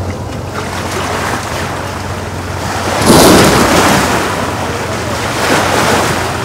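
Wind buffeting the microphone over choppy water slapping at the dock, with a low, steady outboard motor hum underneath. A louder rush of wind and water comes about three seconds in.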